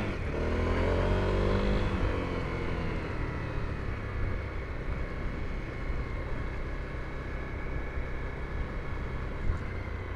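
Honda CRF250L's single-cylinder four-stroke engine while riding: the engine note falls over the first two seconds as the revs drop, then it runs steadily with a low rumble under a rush of riding noise.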